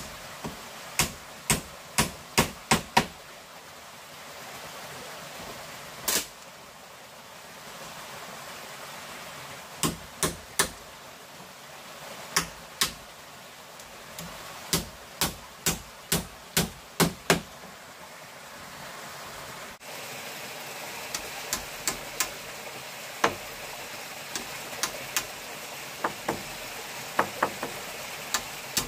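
Runs of sharp knocks, about two a second, of a tool striking bamboo, with pauses between the runs and lighter, quicker blows after the middle. A steady rush of running water lies under them.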